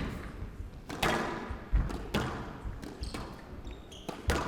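Squash ball in a rally: sharp cracks of racket strikes and the ball hitting the court walls, about one every second, each ringing briefly in the hall.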